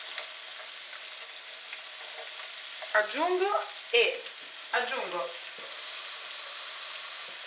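Salmon fillets and freshly added chopped spring onion and shallot sizzling steadily in a frying pan in the fish's own fat. Three short pitched sounds come about three, four and five seconds in.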